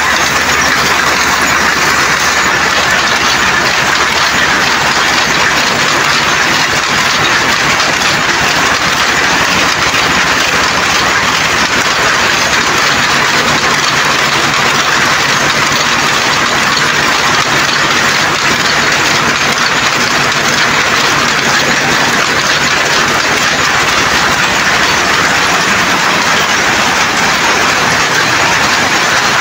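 Several power looms weaving saree cloth: a loud, continuous mechanical clatter of fast, even strokes that keeps up steadily throughout.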